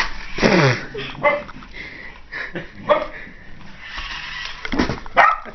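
A dog making short whines and sniffing, one call falling in pitch about half a second in, among scattered light taps.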